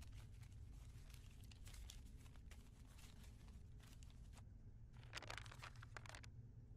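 Faint rustling and scratching of a square of cloth handled by hand, over a low steady hum. A short, louder flurry of rustling comes about five seconds in as the cloth is set down flat on the wooden table.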